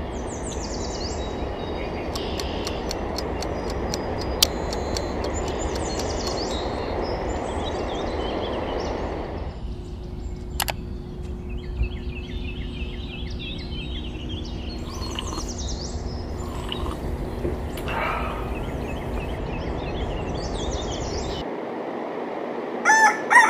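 Birds chirping over a steady background rumble; about ten seconds in the rumble drops away, leaving a low steady hum under further chirps. A rooster starts crowing right at the end.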